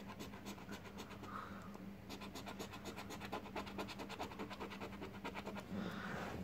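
A coin scraping the coating off a scratch-off lottery ticket in quick, repeated strokes, faint.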